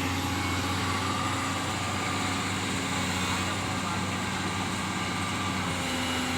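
Komatsu PC200-6 amphibious excavator's diesel engine running steadily at an even pitch.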